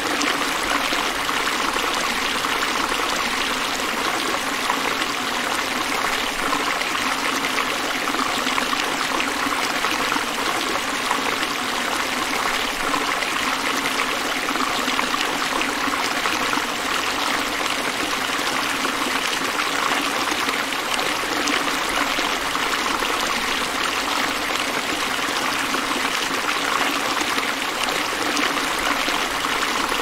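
River water flowing steadily, an even rushing sound that never breaks or changes.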